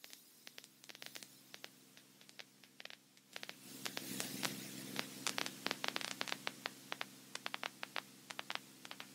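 Faint crackling static on the aircraft's radio audio: scattered clicks over a low steady hum. The crackle grows denser about three and a half seconds in.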